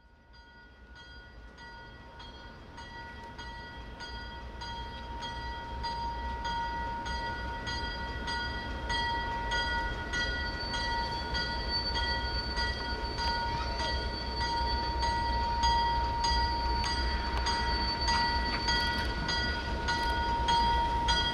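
Bell ringing in regular strikes, about two a second, over the low rumble of an approaching ALCO S6 diesel switcher locomotive (ex-Western Maryland 151). The sound grows steadily louder as the locomotive comes closer.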